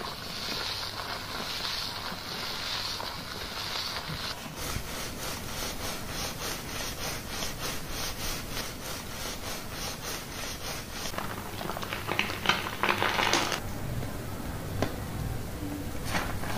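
Gloved fingers scrubbing a heavily lathered scalp: wet, foamy rubbing and crackling of shampoo suds. At first the strokes are slow, about one a second; after a few seconds they turn quick and even, about three a second, and near the end there are a few louder bursts.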